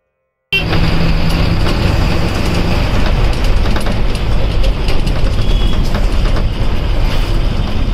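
Inside a moving state-transport bus: steady engine and road noise with the cabin rattling, cutting in abruptly about half a second in.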